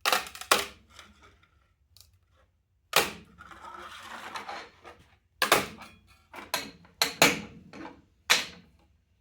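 A blade being worked under a large 3D-printed letter on the printer bed: sharp cracks and snaps as the print pops loose from the bed, a scrape in between, then a quick run of cracks in the last few seconds.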